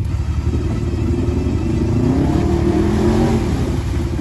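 Off-road side-by-side buggy engine running under load, its revs rising and falling from about two seconds in, while a stuck buggy is towed out of a mud trench.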